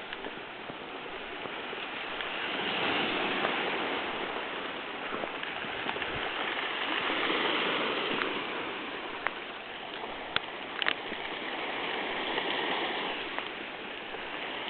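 Ocean waves breaking on the shore below: a steady rush of surf that swells and fades every few seconds. There are a couple of brief clicks about ten seconds in.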